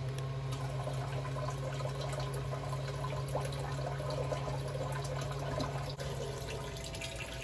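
Attwood 12-volt live well pump running with a steady low hum, water splashing as it recirculates into the live well. The hum weakens about six seconds in while the pump is still working trapped air out.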